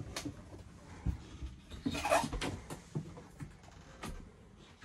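Scattered light knocks and clicks, with a short rustling noise about two seconds in.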